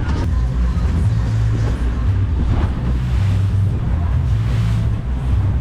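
Boat engines running steadily at trolling speed, a low, even drone, with wind buffeting the microphone.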